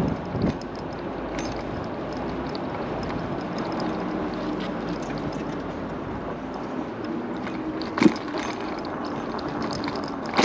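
Riding noise on a MiniPro Mi716 electric scooter: a steady rush of wind and road noise with a faint hum, broken by a few sharp knocks, the loudest about eight seconds in.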